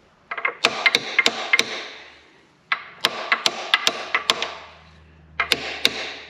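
Hammer tapping on a connecting-rod bolt of a Karrier K6's spare engine to drive the bolt through: three runs of quick, sharp metal strikes, each ringing on briefly.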